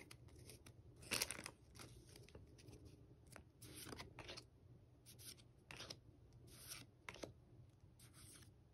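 Pokémon trading cards sliding against one another as they are flipped through one at a time by hand: a string of faint, short swishes and flicks about a second apart.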